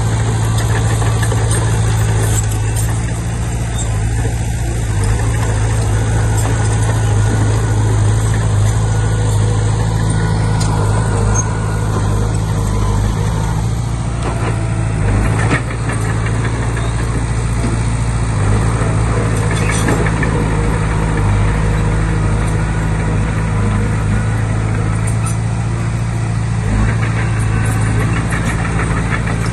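Small crawler bulldozer's diesel engine running steadily under work, with a few sharp knocks and clanks along the way.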